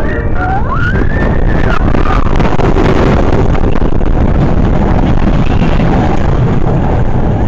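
Seven Dwarfs Mine Train roller coaster running fast along its track: a steady rumble from the train with heavy wind noise on the microphone. A brief rising tone about a second in.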